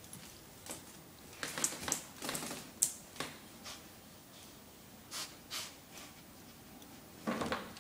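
Airedale terrier moving about on a hardwood floor: scattered, irregular light clicks and taps of its claws and paws, with short snuffling sounds as it noses along the floor, the loudest near the end.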